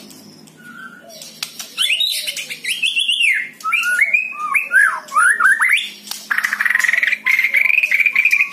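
White-rumped shama (murai batu) singing: after a short pause, a quick run of sweeping whistled notes, then a long rapid trill from about six seconds in.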